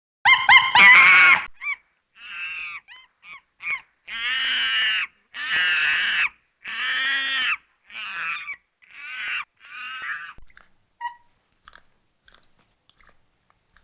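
Monkey calling: a loud opening call, then a few short calls and a run of about six longer pitched calls, each under a second, getting quieter. A few faint short chirps follow near the end.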